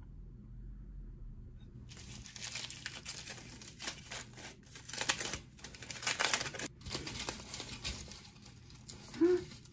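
Aluminium foil crinkling in irregular bursts as it is unwrapped from a gimbap roll, starting about two seconds in. A short pitched sound comes near the end.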